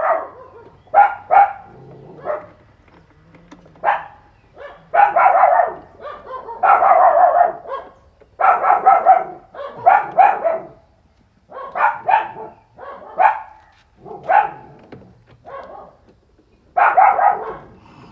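A dog barking repeatedly in loud, irregular bursts: single barks and quick runs of two or three, every second or two.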